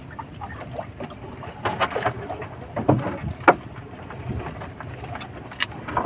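A few light clicks and knocks of hands working a fishing hook and line in a small boat, over a steady low wash of water and wind around the hull. The sharpest knock comes about three and a half seconds in.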